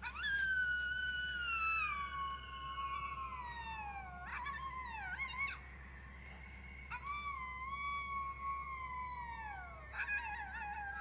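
Coyote howls: two long howls, each sliding slowly down in pitch and breaking into a short wavering yodel at the end.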